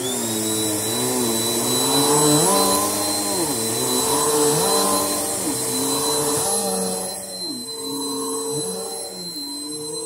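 Bissell PowerForce Helix 2191 upright vacuum cleaner running, with a steady high whine over the motor and a pitch that dips and rises about once a second.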